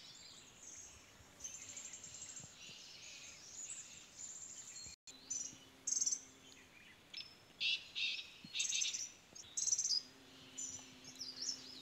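Several wild birds chirping and singing, with short calls and quick trills that come louder and more spaced out in the second half. The sound cuts out completely for a moment about five seconds in.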